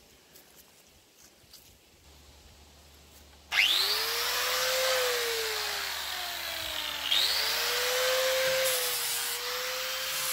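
An angle grinder starts about three and a half seconds in and grinds old paint off wooden boards. Its whine sags as it is pressed into the wood, jumps back up about seven seconds in when eased off, and sags again under load.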